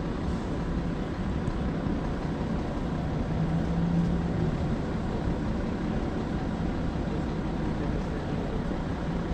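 Steady low rumble of road traffic beside a bus stop, with a vehicle engine's hum growing louder for about a second near the middle.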